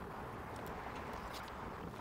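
Steady outdoor background noise, an even hiss with a few faint light ticks.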